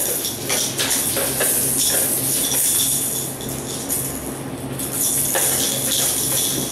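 Ferrets scrabbling and wrestling in a plastic tub, their claws scraping the plastic and rubber toys knocking about, making a busy run of irregular clicks, scratches and rustles over a steady low hum.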